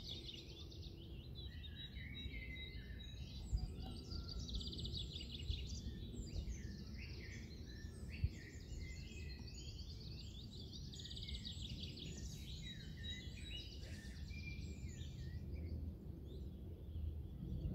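Several small songbirds singing in the background, with rapid trilled phrases recurring every few seconds, over a steady low rumble of outdoor noise.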